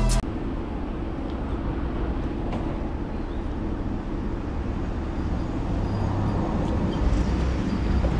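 A vehicle driving slowly: steady engine and road noise, picked up by a camera mounted on the outside of the driver's door.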